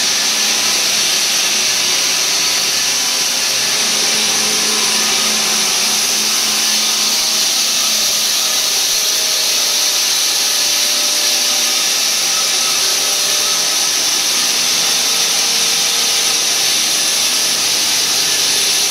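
Indotech ITM-600VPS plate saw running as it cuts a thick metal slab, making a steady, loud hiss with a faint hum underneath.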